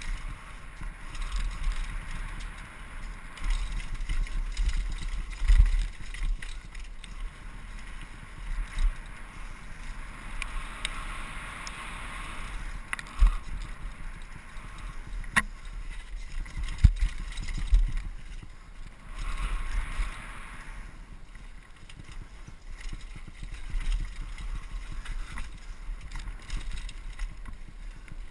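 Downhill mountain bike running fast over a rough dirt trail: a steady rush of wind buffeting the microphone, with the bike rattling and sharp knocks as the wheels hit bumps and roots.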